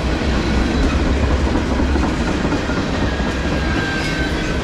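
Tank cars of a long freight train rolling past close by: a steady rumble of steel wheels on the rails, with a faint high ringing tone from about three seconds in.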